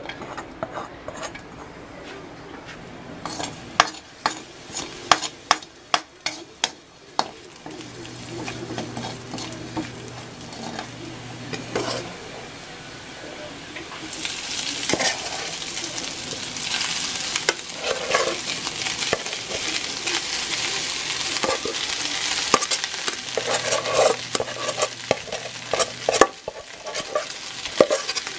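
Chopped garlic sizzling in oil in a metal wok, with a spatula clicking and scraping against the pan. About 14 seconds in, cooked rice goes in and the sizzle gets louder as the garlic fried rice is stir-fried.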